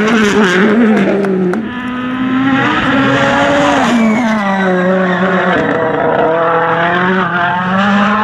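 A 2018 World Rally Car's 1.6-litre turbocharged four-cylinder engine driven hard at high revs. Its note drops sharply several times and climbs again as the car shifts and lifts, with a few sharp pops in the first two seconds.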